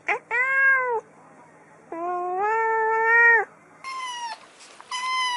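Kitten meowing repeatedly. A brief chirp runs into a long meow, a second long meow comes about two seconds in, then two shorter, higher-pitched meows follow near the end.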